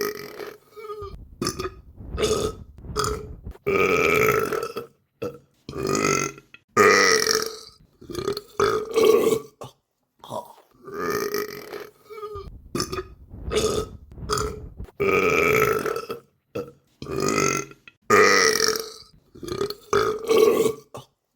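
A rapid run of human burps, one after another with short pauses between them, some short and some long and drawn out.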